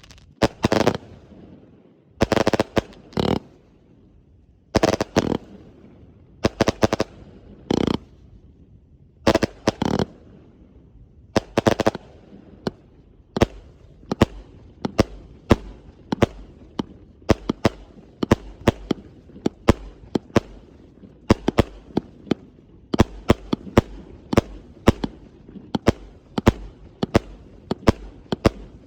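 A multi-shot firework cake firing lying on its side instead of upright. It lets off bursts of sharp bangs, a couple of seconds apart at first, then coming quicker and almost continuously from about halfway through.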